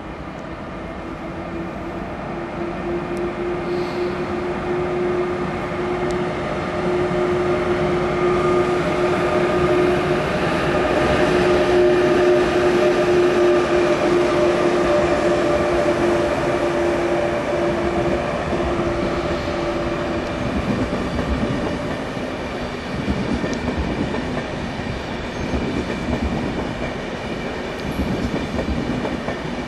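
ÖBB Railjet train hauled by a Taurus class 1116 electric locomotive passing by. A steady electric hum from the locomotive grows louder, peaks as it goes past, and stops about two-thirds of the way through. The carriages then rumble and clatter over the rail joints.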